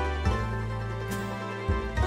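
Background music: a soft instrumental track of sustained notes, with the bass note changing every half second to a second.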